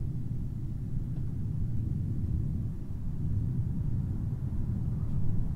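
Low, steady rumbling hum: the creepy background drone of a horror short film's soundtrack.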